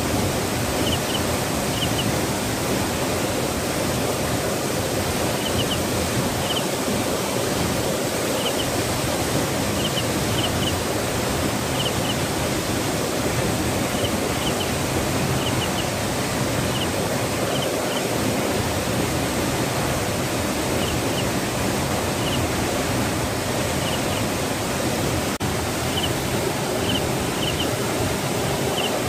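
Waterfall rushing steadily, a constant full hiss of falling water over rock. Faint short high chirps come in twos and threes every second or two above it.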